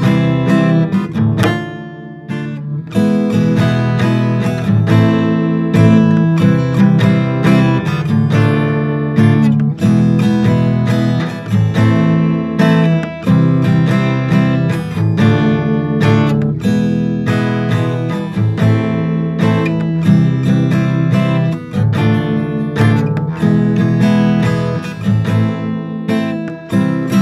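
Instrumental music on acoustic guitar: strummed chords mixed with plucked notes, played throughout with no singing.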